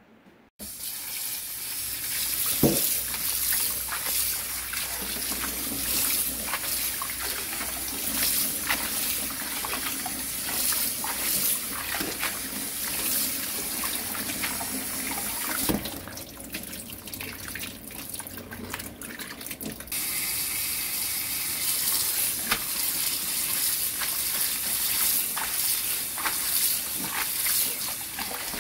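Running tap water splashing into a stainless steel sink as cutleaf coneflower greens are rinsed in a bowl of water and lifted out by hand. It starts suddenly, quietens for a few seconds past the middle, and carries a few light knocks.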